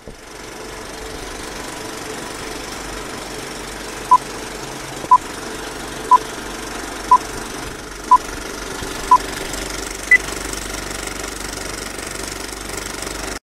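Film projector running with a steady mechanical rattle, and countdown-leader beeps once a second: six short beeps at one pitch, then a single higher beep. The sound cuts off suddenly near the end.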